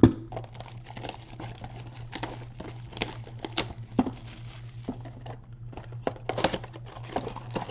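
Clear plastic shrink-wrap crinkling as it is torn off a cardboard trading-card blaster box, with irregular crackles and taps as the box is handled and opened. A sharp thump right at the start.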